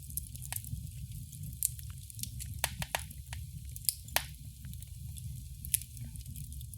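Wood fire burning in a fireplace: a steady low rumble of the flames with irregular sharp crackles and pops, a few louder snaps about four and six seconds in.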